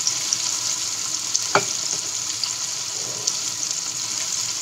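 Cornstarch-coated chicken pieces frying in hot oil: a steady sizzle with scattered small spatter pops and one sharper click about a second and a half in.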